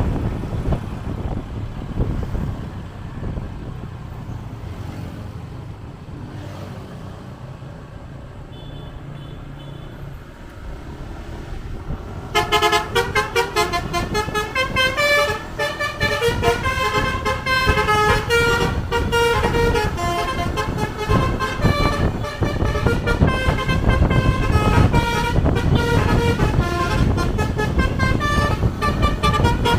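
Bus's 'telolet basuri' musical horn playing a tune of quickly changing notes. It starts suddenly about twelve seconds in, after a low rumble of the vehicle.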